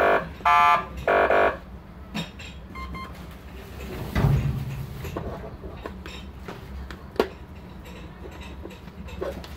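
AS830 electronic siren amplifier sounding three short electronic beeps in quick succession, the middle one higher in pitch, as remote buttons are pressed. After that, plastic button clicks and handling knocks, with a dull thump about four seconds in.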